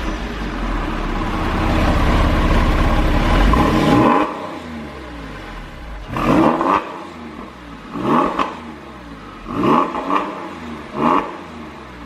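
Porsche 996 Carrera 4S flat-six, its mufflers partly bypassed by a Fister mod, running at a high idle just after a semi-warm start. The idle drops about four seconds in. Then come four quick throttle blips, each rising and falling sharply.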